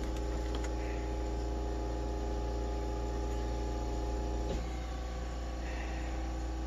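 Steady electrical hum with several steady higher tones over it. A faint click comes about four and a half seconds in, where the highest tone drops out.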